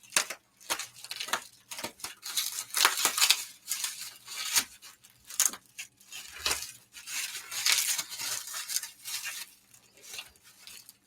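Packing material being handled, torn and pulled apart while a package is unwrapped: irregular crinkling and rustling with short tearing snaps.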